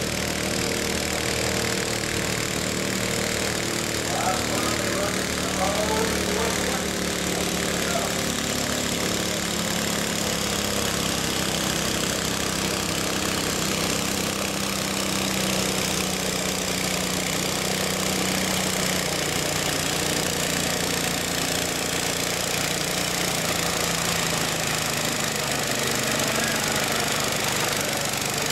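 Modified riding lawn mower engine running steadily under load, holding an even pitch as it drags a weight-transfer pulling sled.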